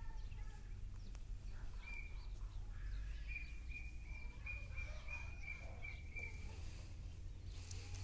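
Indian robin calling: a run of short, evenly spaced high chirps on one pitch, two to three a second, from about two seconds in until about six seconds, with fainter lower calls around it. A steady low rumble runs underneath.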